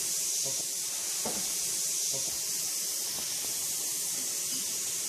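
Steady high-pitched hiss with no distinct knocks, scrapes or tool sounds.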